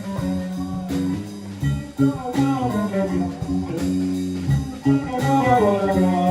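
Live blues-rock trio playing: electric guitar single-note lines with pitch bends over bass guitar and drum kit.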